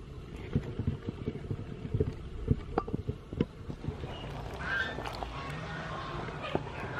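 Pot of soup boiling hard, bubbling with many irregular low pops and a few sharper clicks. From about four seconds in, a chicken clucks in the background.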